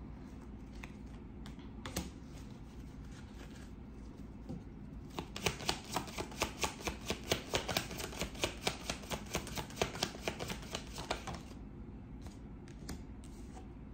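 A deck of tarot cards shuffled by hand. A few scattered card clicks, then a quick, even run of card clicks, about four a second, for around six seconds from about five seconds in.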